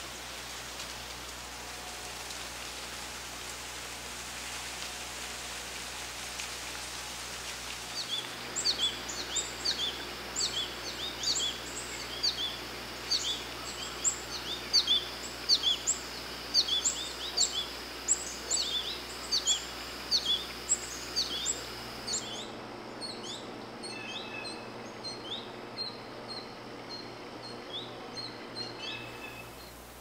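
Steady outdoor hiss, then from about eight seconds in a quick run of short, high chirps from American goldfinches, going on until just before the end.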